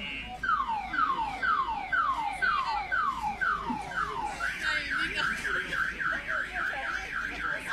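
Electronic siren sounding in a cycling pattern: a run of falling whoops, about two a second, then from about four seconds in a faster warble.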